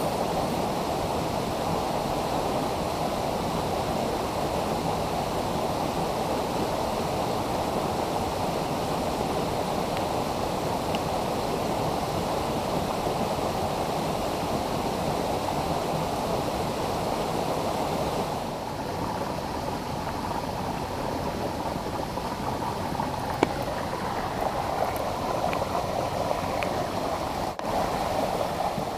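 A mountain headwater stream rushing over boulders and small riffles in a steady, even flow. The rush drops slightly and changes character about two-thirds of the way through, and a single brief tick sounds a little later.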